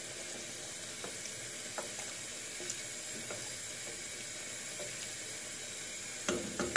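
Pot of vegetable, chickpea and wheat soup boiling on a gas stove, a steady bubbling hiss, with a wooden spoon stirring through it and giving faint knocks against the pot. A couple of louder knocks near the end.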